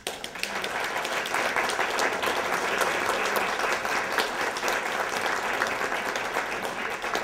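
Audience applauding, many hands clapping together. It builds up within the first second and holds steady.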